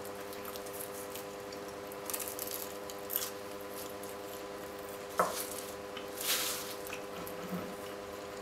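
Close-up eating sounds: crisp flaky pastry crackling as it is bitten and chewed, with a few small clicks and one sharper click about five seconds in. A steady electrical hum runs under it.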